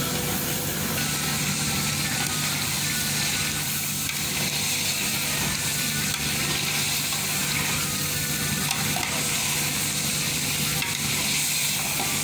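Beef frying in hot oil in an aluminium pot, sizzling steadily while a spatula stirs the pieces around.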